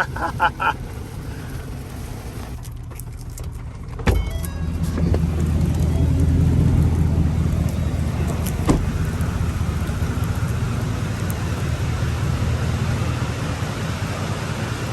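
A vehicle running, heard from inside the cab as a steady low hum. About four seconds in there is a sharp knock, after which the hum grows louder and stays steady.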